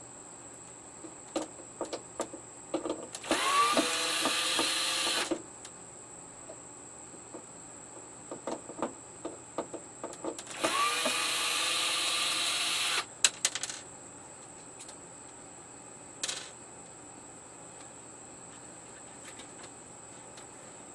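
Cordless screw gun backing screws out of a TV's plastic back cover: two runs of about two seconds each, the motor's pitch rising as it spins up, with clicks and taps from the bit and screws between them.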